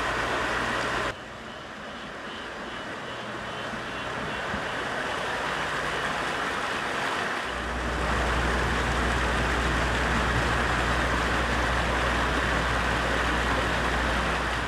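Steady rush of a rocky mountain creek, with rain-soaked outdoor ambience. The sound drops suddenly about a second in and builds back, and a low rumble joins about halfway through.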